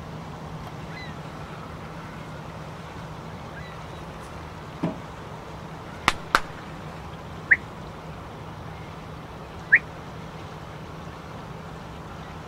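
Canada geese calling over a steady low hum: a short low rising call about five seconds in, then two brief high upswept calls a couple of seconds apart. Two sharp clicks come just after the first call.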